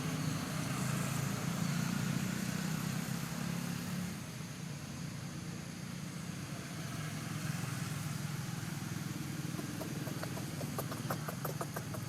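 A motor vehicle's engine running steadily, loudest for the first few seconds and easing off about four seconds in. Near the end comes a quick run of short, sharp ticks.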